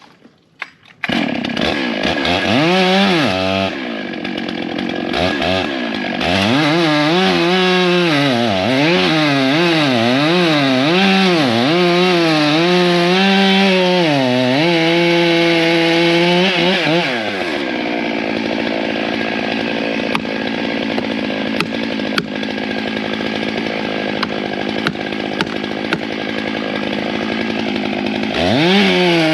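Stihl 661 two-stroke chainsaw starting up about a second in and revving up and down repeatedly while cutting into the tree, then dropping to a steady idle for about ten seconds before revving again near the end.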